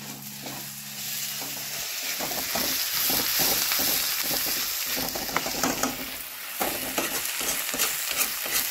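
Chopped onions and tomatoes sizzling in a steel kadai over a gas flame, stirred with a steel ladle that scrapes and clicks against the pan again and again.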